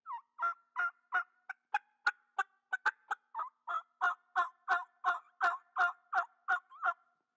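Dome-style latex diaphragm turkey mouth call blown by a man, making a run of about twenty turkey calls at roughly three a second, with a few shorter, sharper notes in the middle. Each note has a two-tone sound.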